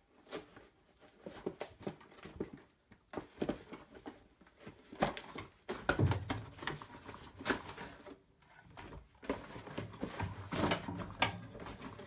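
Cardboard box being opened by gloved hands: flaps pulled and torn, with rustling and scattered knocks and scrapes.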